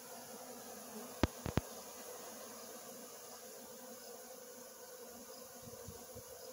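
Many honeybees buzzing together in a steady hum as they feed on buckets of leftover honeycomb and cappings. Two sharp clicks stand out about a second and a half in.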